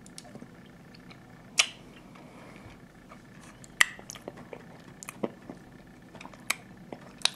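Chewing a bitten milk chocolate toffee caramel close to the microphone: sharp mouth clicks at uneven intervals, loudest twice in the first four seconds.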